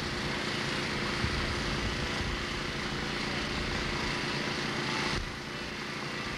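A car engine idling steadily, with a slight drop in loudness about five seconds in.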